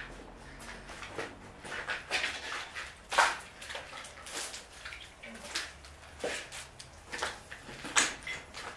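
Footsteps, scuffs and knocks of a person moving about and handling things, irregular and uneven, with the loudest knocks a little after three seconds in and near the end.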